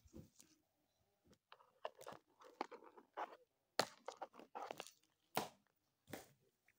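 Faint, irregular rustling and light clicks of plush and plastic toys being handled and gathered up.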